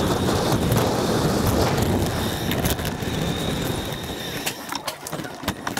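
Wind rushing over the microphone with road rumble from a bicycle rolling along the street. The rush dies away about four and a half seconds in, leaving a few sharp clicks and knocks.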